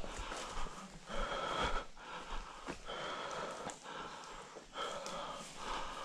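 A person breathing hard and out of breath close to the microphone, in regular heavy in-and-out breaths, winded from running.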